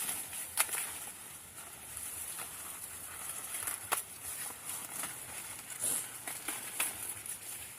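Dry corn plants rustling and snapping as ears of corn are broken off the stalks by hand, with several sharp cracks scattered through, over a steady high hiss.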